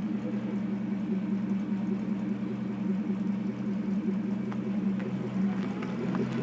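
1984 Porsche 928S's V8 engine running steadily at low speed as the warmed-up car reverses, sounding normal with none of its cold-reverse transmission noise.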